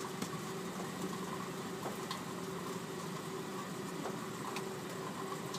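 Steady low hum of a car engine idling, heard from inside the cabin, with a few faint clicks.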